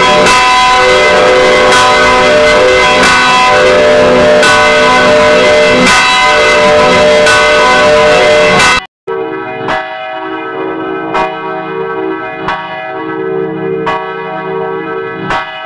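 Several church bells ringing, with a new stroke about every second and a half. A loud, full peal cuts off abruptly about nine seconds in, and a second, quieter peal of bells follows.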